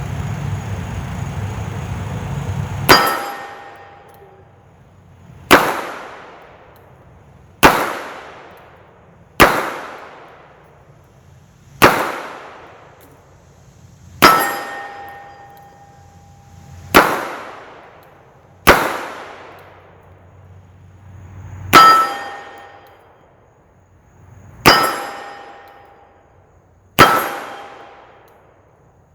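Single 9mm shots from a Palmetto State Armory Dagger Compact pistol firing 115-grain hollow points, eleven shots at an unhurried pace of one every two to three seconds, starting about three seconds in. Several shots are followed by a brief metallic ringing. A steady low noise runs until the first shot.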